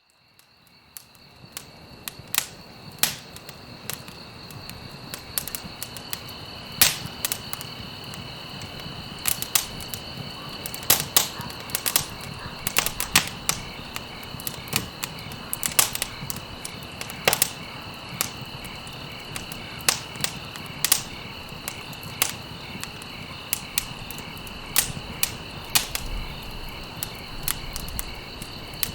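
Campfire burning with frequent sharp crackles and pops from burning stalks over a low steady hiss, fading in from silence at the start. Crickets chirp steadily in the background.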